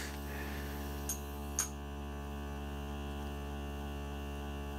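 Replacement 12 V DC micro air pump in a nebulizing diffuser running with a steady hum, with two faint ticks a second or so in.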